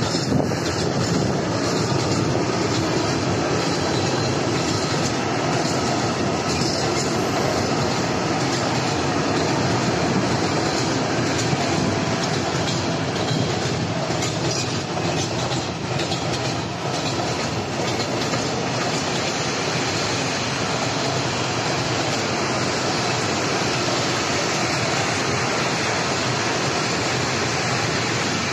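A long freight train of open-top wagons rolling past at steady speed. Its wheels clatter continuously over the rail joints.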